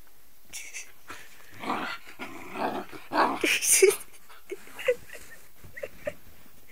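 A dog vocalizing in several short bursts, loudest about three and a half seconds in, followed by a few brief, quieter sounds.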